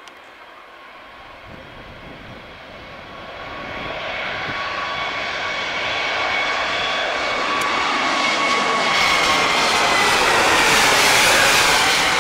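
Airbus A320neo's twin turbofan engines at takeoff thrust as the airliner lifts off and climbs overhead. The roar grows steadily louder, with a high steady whine of several tones over it that dips slightly in pitch near the end as the aircraft passes.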